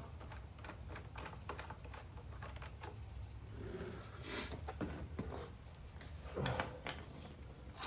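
A run of light clicks and taps from parts and tools being handled, with a couple of louder knocks about four and six and a half seconds in, over a steady low hum.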